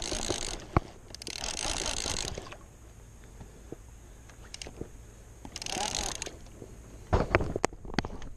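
Fishing reel ratcheting in three buzzy bursts during the fight with a hooked fish, followed by a few sharp knocks near the end.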